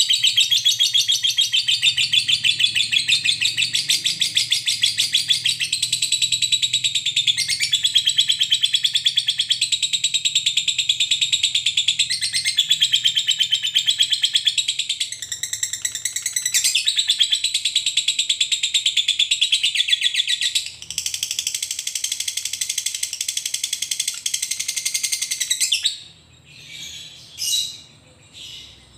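Fischer's lovebird giving a long, unbroken rapid chatter, the 'ngekek panjang' that lovebird keepers prize as the mark of a bird in full song. It stops about three seconds before the end, and a few short chirps follow.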